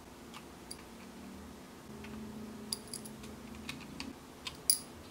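A few light metallic clicks and taps as a small precision screwdriver works the truck screw of a plastic HO scale hopper car, seating shim washers under the truck.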